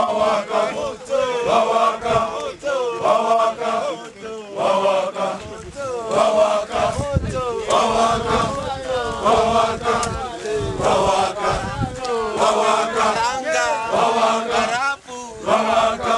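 A group of porters and guides singing a rhythmic chant together in short, repeated phrases, to accompany their dancing.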